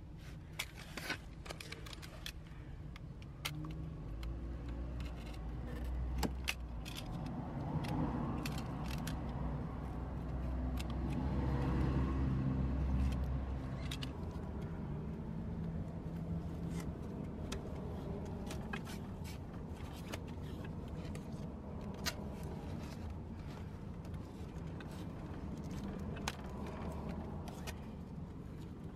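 Scattered light clicks and clinks of hand tools and fittings being handled on the pipework, over a low rumble, like a passing vehicle, that swells to a peak about halfway through and then fades.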